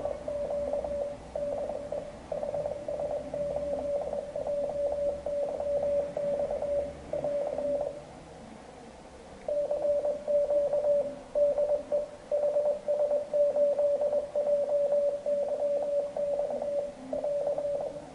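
Morse code from a homebrew 14.062 MHz CW transmitter built around a TTL clock oscillator, heard on a receiver as a single steady beep keyed on and off in dots and dashes. The keying pauses for about a second and a half partway through, then starts again.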